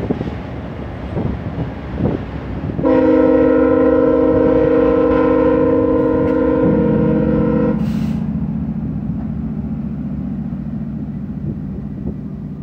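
A VIA Rail passenger train's coaches roll past on the rails. About three seconds in, a locomotive horn blows a steady chord for about five seconds. From about seven seconds, a low steady drone comes in from the trailing GE P42DC diesel locomotive as it draws near.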